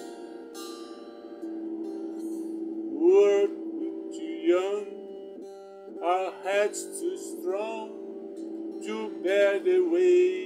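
An electric guitar plays sustained chords. A man's singing voice joins about three seconds in, in phrases that come and go over the guitar.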